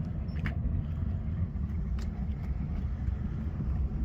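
Twin 7.4-litre inboard engines of a cabin cruiser running at low speed, a steady low rumble, with a couple of faint clicks.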